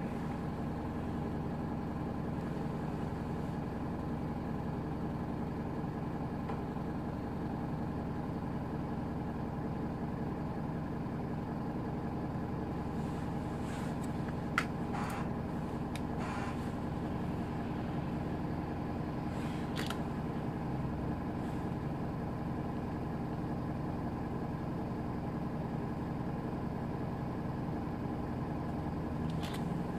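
Cabin sound of a Hino Poncho small city bus (2DG-HX9JLCE): its diesel engine running with a steady, even hum. A few sharp clicks come around the middle.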